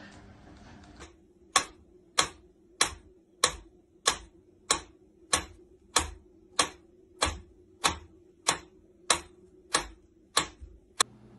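Mechanical pendulum metronome ticking at an even, moderate tempo of about three ticks every two seconds. The ticks begin about a second and a half in and stop abruptly near the end.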